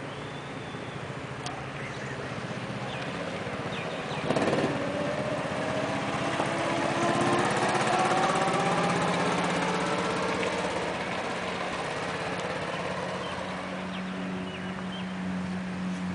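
Go-kart engines running on a track. One kart comes close and accelerates, its engine rising in pitch and loudest about eight seconds in, then fades as it moves away, leaving a lower steady drone. A brief loud rasp comes about four seconds in.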